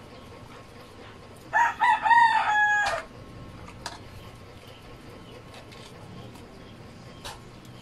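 A rooster crowing once, about a second and a half in: a few short notes running into a held, slightly falling final note, over in about a second and a half. A few faint clicks sound elsewhere.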